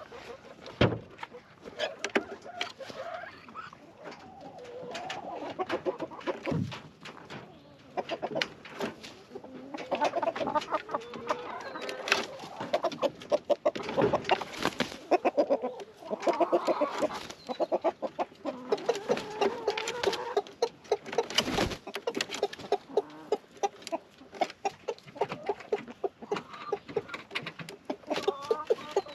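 A flock of chickens clucking in rapid runs of calls. A few dull knocks come now and then.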